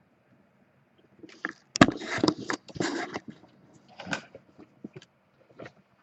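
Irregular rustling and scraping of handled packaging or cards, starting about a second in, with the loudest crackle a little under two seconds in.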